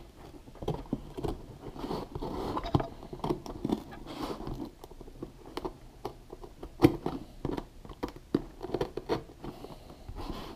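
Utility knife blade poking and cutting through gritty skateboard grip tape laid on cardboard: irregular scratchy scrapes, crunches and clicks, with the stiff sheet rustling as it is handled. A sharp click stands out about seven seconds in.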